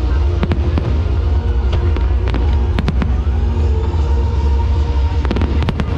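Aerial fireworks display: a string of sharp bangs and crackles from bursting shells, with a cluster of quick reports near the end, over music with a heavy bass.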